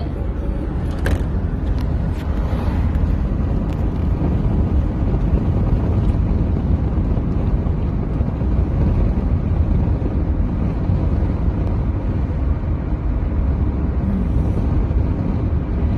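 Steady road and engine noise inside a moving car's cabin, heaviest in the low end, with a faint click about a second in.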